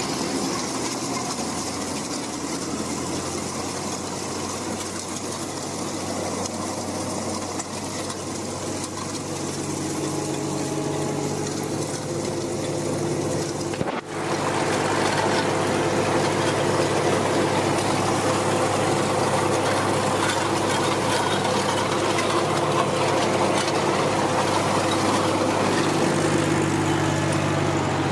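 Ursus C-360 3P tractor's three-cylinder Perkins diesel engine running steadily while pulling a seed drill.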